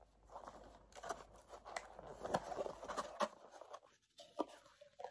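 Small cardboard tea box being handled and opened by hand: a string of light taps, scrapes and rustles of the cardboard, with a short pause a little before the end.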